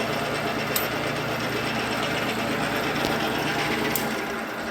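Bolton 12" x 23" metal lathe running with its power cross feed engaged: a steady mechanical whir of motor and gear train that dies away near the end.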